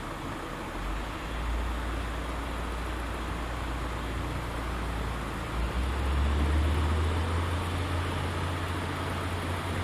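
Heavy diesel engine running steadily under broad mechanical noise. About six seconds in it revs up: the drone rises in pitch and gets louder, then holds.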